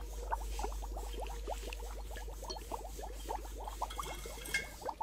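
Zinc electroplating bath fizzing: gas bubbles forming and popping in the solution as current flows through the part, heard as a steady crackle of tiny rising bubble pops, with a steady low hum underneath.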